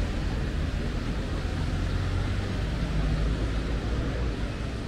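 City street ambience: a steady low rumble with an even hiss over it, and no single sound standing out.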